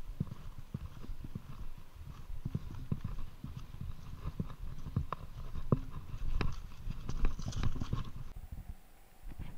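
Electric mountain bike rolling over a rocky gravel trail: a low rumble from the tyres on loose stones, with irregular knocks and rattles as the bike jolts over rocks. It gets quieter near the end.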